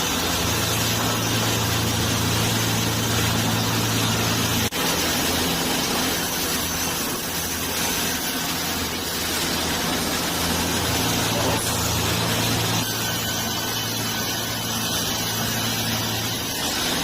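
Wood-cutting machinery running steadily, a continuous noisy sound over a low hum, with a brief dropout about five seconds in.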